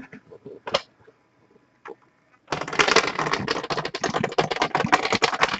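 Computer keyboard typing: a few isolated key clicks, then a fast, unbroken run of keystrokes beginning about two and a half seconds in.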